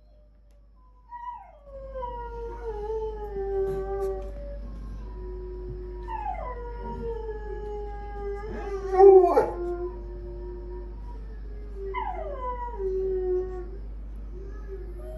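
Small pet dogs howling: three drawn-out howls, each sliding down in pitch and then held. The howls overlap and are loudest in the middle of the sequence.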